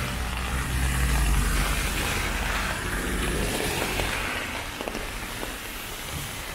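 Steady hiss of falling rain on the street, with the low rumble of a passing vehicle's engine in the first couple of seconds that fades away.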